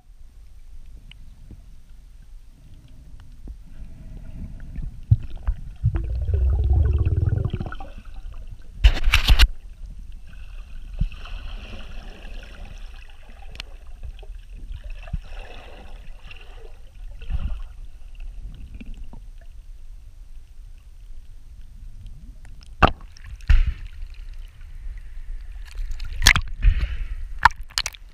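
Muffled sloshing and gurgling of water around a GoPro in its underwater housing, with a louder rushing burst about six seconds in and a few sharp knocks, one near nine seconds and several near the end.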